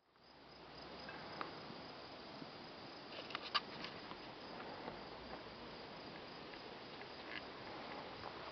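Insects trilling steadily, a high thin drone over a soft outdoor hiss, with a few sharp clicks about three and a half seconds in.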